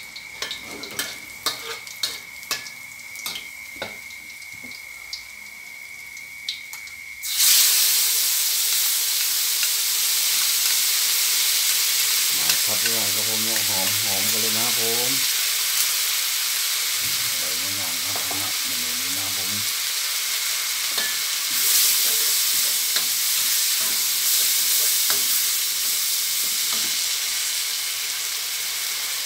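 A metal spatula taps and scrapes garlic frying gently in a wok. About seven seconds in, chili and grilled-fish paste goes into the hot oil and sets off a sudden loud, steady sizzle that continues as it is stirred.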